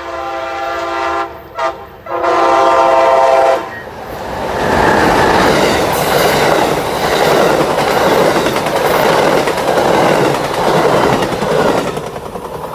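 Horn of an Amtrak Siemens ALC-42 Charger locomotive sounding for a grade crossing: the tail of one blast, a short blast, then a louder long blast that stops a few seconds in. Then the train's Amfleet passenger cars rush past with wheel clickety-clack, easing off near the end.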